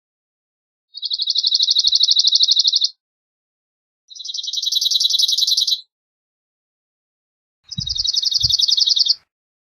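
Cirl bunting singing: three separate songs, each a dry, rapid rattle of one note repeated for about two seconds, with pauses between them; the last is slightly higher.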